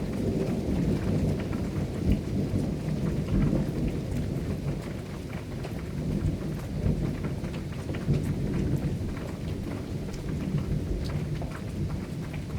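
Rain falling, with scattered drop ticks over a steady low rumble.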